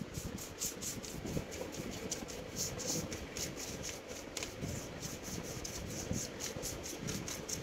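Rapid rubbing strokes, several a second, as the laptop's motherboard and fan area are scrubbed clean.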